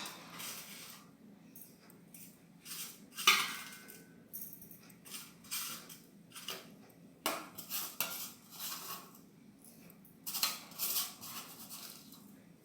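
Kitchen utensils and dishes clinking and clattering in short, irregular knocks and scrapes, the sharpest clink about three seconds in.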